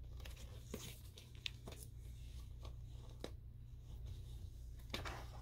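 Faint rustling and scattered clicks of a picture book's paper pages being handled and turned, over a steady low hum.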